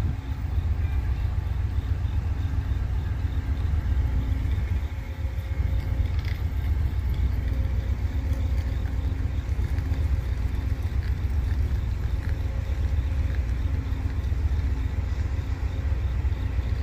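Freight train passing: a steady low rumble with a faint steady hum above it.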